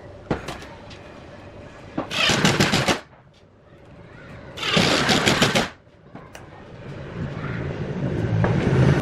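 Drill run in two short bursts of about a second each, a rapid rattling of clicks in each burst, with a lower rumble building up near the end.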